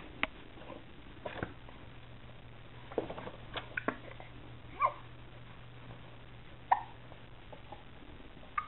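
A baby's hiccups: short, sharp hics every second or two, the loudest two about five and about seven seconds in, among light clicks and taps from the plastic toys of an exersaucer.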